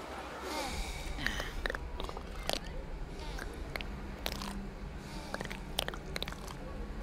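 Crab-claw sound effects: scattered short clicks and clacks, with a low steady hum underneath.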